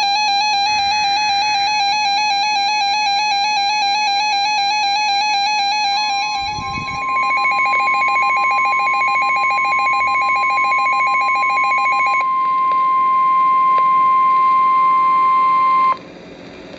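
Emergency alert tones on a weather radio. First comes a warbling electronic alarm, with the screech of the SAME data burst faintly under it near the start. About six seconds in the NOAA Weather Radio 1050 Hz warning alarm tone starts, one steady high tone held about ten seconds with pulsing beeps over its first half, cutting off suddenly near the end.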